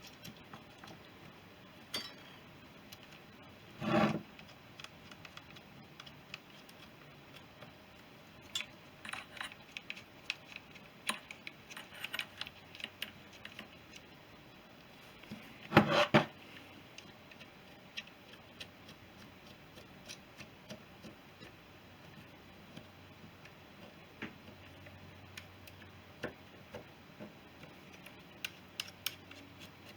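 Spanner and small metal parts clicking and clinking while the carburettor mounting bolts are done up, with two louder knocks about four seconds and sixteen seconds in.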